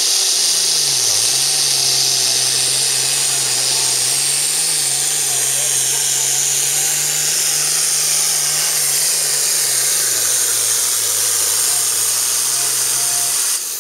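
Turbocharged diesel Super Farm pulling tractor at full throttle while dragging a pulling sled: a loud, steady engine note with a high whine over it, the pitch wavering only slightly.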